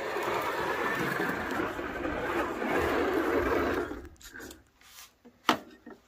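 A 1/24-scale slot car running along its track, the small electric motor whirring steadily, then cutting out about four seconds in. A few light clicks follow, with one sharp click shortly before the end.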